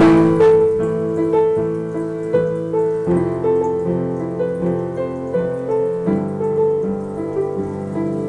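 Upright piano being played: a loud chord struck at the very start, then a flowing melody of notes over sustained chords in the lower and middle range.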